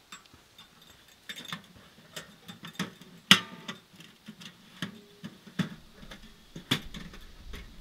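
Irregular knocks and clatter of camping gear being handled and set down on the ground inside a tent, with one sharp knock a little before the middle.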